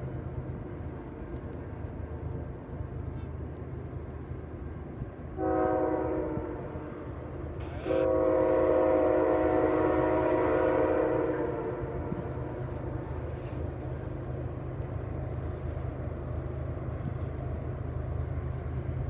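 Multi-chime air horn of an approaching CN freight train led by GE ES44AC diesel locomotives: a blast fading out at the start, a short blast about five seconds in, then a long blast of about three and a half seconds, the pattern of the close of a grade-crossing signal. A steady low rumble of the train runs underneath.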